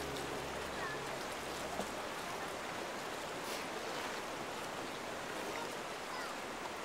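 Steady rush of a shallow river running over rocks. A held music chord fades out about two seconds in.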